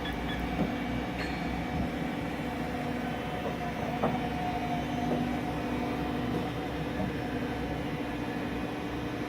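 Haas VF-0 CNC vertical machining center running: a steady mechanical hum with several held tones over a rumble, and a few light clicks.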